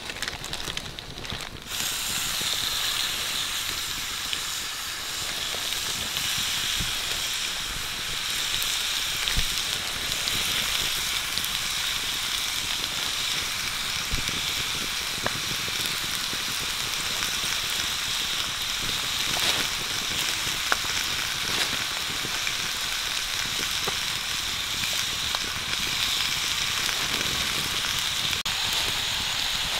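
Raw pig intestines sizzling on a hot flat stone slab over a wood fire: a steady frying hiss that starts about two seconds in, with a few sharp pops.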